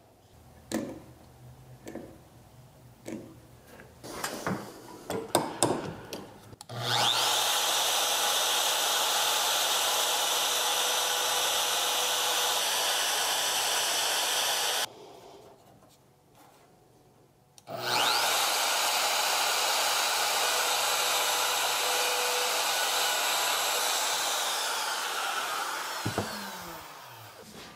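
Router cutting mortises in a red oak leg through a domino mortising jig: two steady runs of about eight and six seconds with a short pause between, the second one winding down near the end. Light knocks and clicks of handling the jig and workpiece come first.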